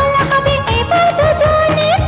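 Background music: a Bollywood-style song with a gliding melody over a steady beat.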